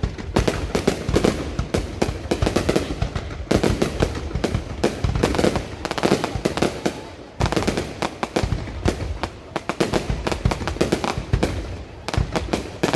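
Fireworks going off in rapid, continuous succession: many overlapping bangs and crackles with no pause between them.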